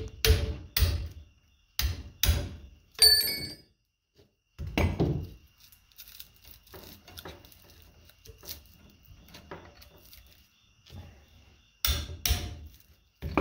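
Sharp metal knocks and clinks as copper commutator bars are pried and knocked loose from a large scrap armature with a screwdriver or chisel, including one bright ringing clink about three seconds in. The knocks come in clusters, with a quieter stretch of small scrapes in the middle.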